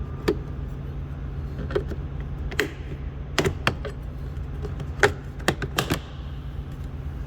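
A series of about nine sharp clicks and taps at irregular spacing, from a plastic trim tool working at a truck's door trim panel, over a steady low hum.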